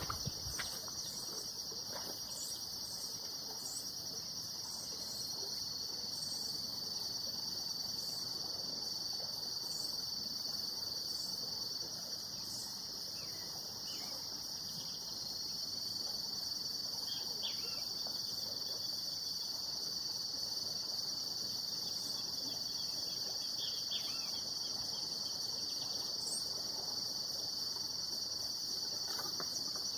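A steady, high-pitched insect chorus trilling without a break, growing a little louder about halfway through.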